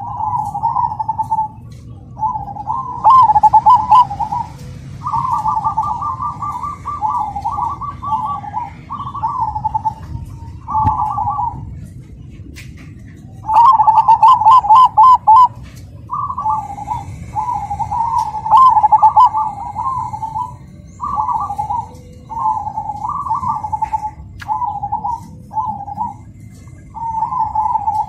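Zebra dove (perkutut) singing its rhythmic cooing song: phrase after phrase of quick rolling coos, with a pause of about two seconds near the middle.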